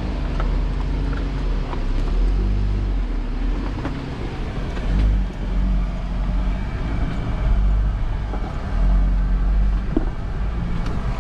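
A Jeep's engine running at low speed as it crawls over a rocky trail, heard from inside the cab as a steady low hum, with a few sharp clicks and knocks from the rocks and the body.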